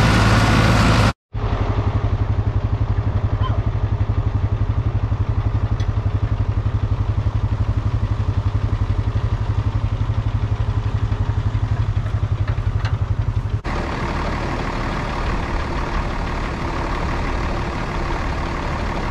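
Farm tractor engines running, across several abrupt cuts. First a John Deere tractor runs briefly while mowing. After a momentary dropout, a close engine idles with an even low throb for about twelve seconds. Then it changes suddenly to a steadier, quieter engine hum.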